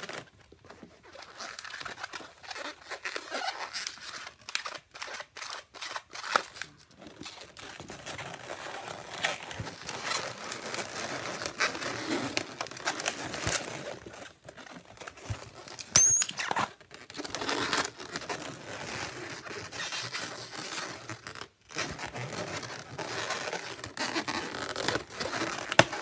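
Inflated latex twisting balloons rubbing, squeaking and crinkling against each other and against hands as they are twisted and wrapped together, with one sharp high squeak about sixteen seconds in.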